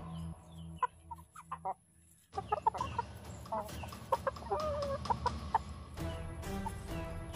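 Thai game chickens clucking repeatedly in short, quick calls while they forage, over background music that drops out briefly about two seconds in.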